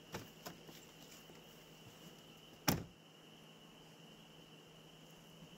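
A car door opening with a couple of light clicks, then shut with a single loud thud about two and a half seconds in. A faint, steady high-pitched tone runs underneath.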